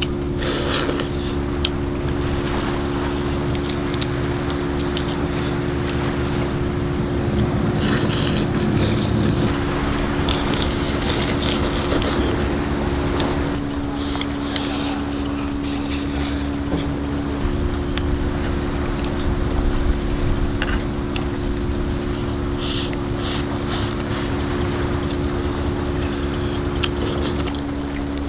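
Close eating sounds, scattered clicks and crunches of crab shell, chopsticks against a steel bowl and slurping of rice, over a steady low engine hum from the boat.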